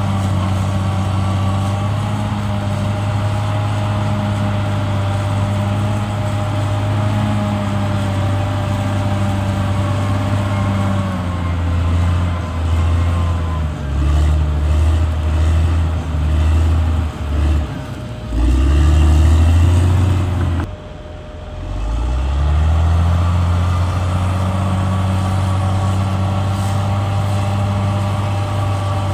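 Caterpillar D6R XL bulldozer's diesel engine running, with a thin steady whine above it. A third of the way in its pitch dips and surges repeatedly as it works under load, drops sharply for a moment a little past the middle, then climbs back to a steady run.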